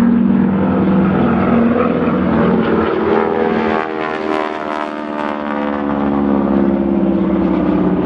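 Sikorsky S-76B helicopter's main rotor and twin turboshaft engines running steadily in a hover. About three seconds in, a T-6 Texan's propeller and radial engine pass by, the note sliding down in pitch as it goes past.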